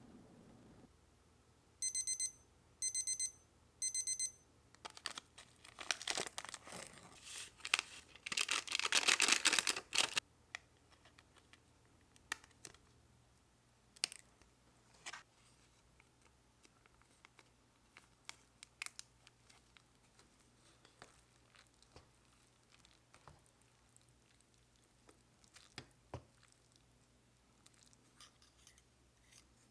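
An electronic appliance beeps three times, about a second apart. Then, from about five seconds in, plastic packaging crinkles and is torn open for about five seconds, followed by scattered light clicks and taps.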